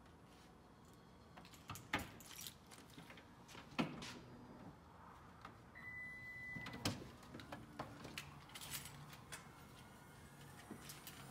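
Knocks and clicks, then about six seconds in a single beep of just under a second from the Lexus RX350's power liftgate, a clunk as it unlatches, and the freshly replaced liftgate motor humming faintly as it lifts the gate.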